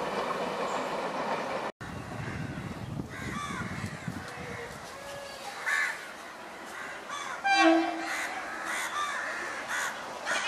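Crows cawing several times, loudest about three-quarters of the way through, over the low rumble of passing trains. Less than two seconds in, the sound drops out for an instant.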